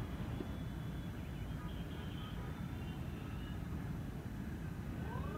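Steady low rumble of wind buffeting the microphone on an open hilltop. Near the end, a rising swell of electronic music begins to fade in.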